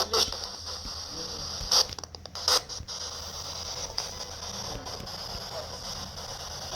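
Spirit box scanning through radio frequencies: steady static hiss, broken by a few short loud blips of radio sound in the first three seconds.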